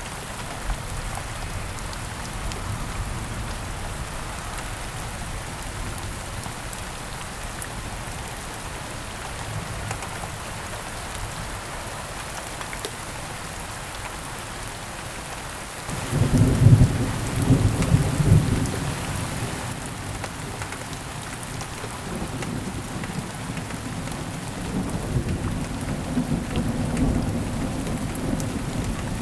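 Steady rain falling, with a clap of thunder about halfway through that is loudest for a few seconds, then rolls on as a lower rumble under the rain.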